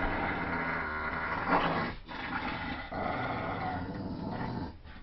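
Dogs play-growling in a tug of war: long, continuous rough growls, loudest about a second and a half in, broken by short pauses about two seconds in and near the end.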